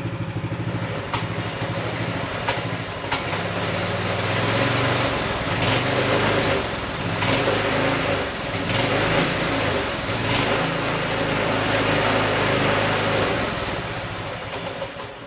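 Baja Warrior 200cc minibike's single-cylinder four-stroke engine running as the throttle is opened and closed to test the cable. The engine is shut off near the end.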